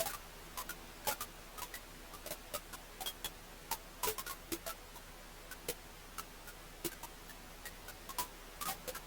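Wood fire crackling: irregular sharp pops and snaps, several a second with a few louder ones, over a faint steady hiss.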